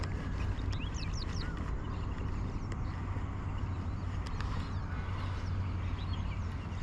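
Small birds chirping in short, quick rising and falling notes, several in a rapid cluster about a second in. Under them runs a steady low rumble.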